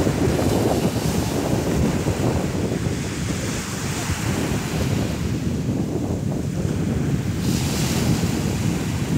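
Small waves breaking and washing up a sandy beach, with wind buffeting the microphone in a low rumble. The hiss of the wash swells again about three quarters of the way through.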